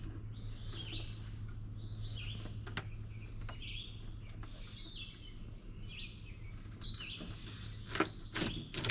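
Songbirds chirping, a short phrase repeated about once a second, over a steady low hum. A few sharp knocks, the loudest about eight seconds in, come from a glass window panel being worked loose in the grader cab's steel door frame.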